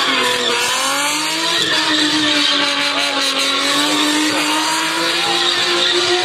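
Drift car's engine held at steady high revs, rising slightly in the first second or so, as the car spins tight donuts with its rear tyres spinning and squealing on the tarmac.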